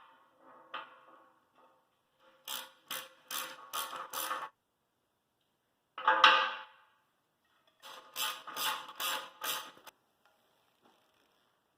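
Hand-tool work on steel tractor wheel parts: a ringing metal clank about six seconds in, and two runs of quick sharp metallic strokes, about three a second.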